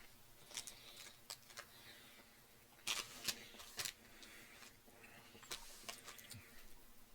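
A crisp wafer chocolate bar, a Coffee Crisp, being bitten and chewed: scattered crunchy crackles, with the loudest cluster about three seconds in.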